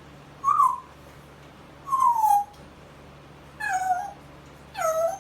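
Four short meow-like calls from a pet imitating a cat, each sliding down in pitch, spaced about a second or so apart.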